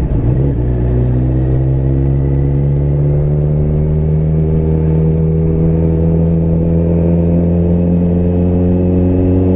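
Motorcycle engine running steadily while riding at low speed, its note dipping briefly at the start and rising slightly near the end.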